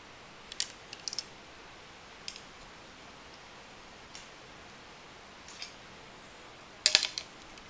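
Scattered light clicks and taps from handling a carbon fishing rod, with a louder cluster of clicks near the end.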